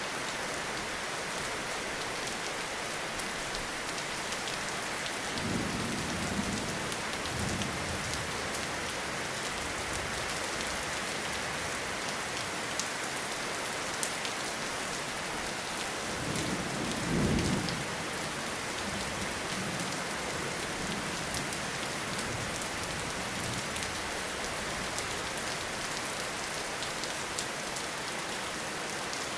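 Steady rainfall in a forest, with the patter of individual drops. Low rumbles of distant thunder come about six seconds in and again, louder, around seventeen seconds in.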